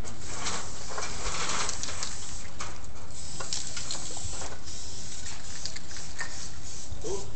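Aerosol spray-paint cans hissing in short bursts, one after another, each lasting under a second to about a second, over a low steady rumble.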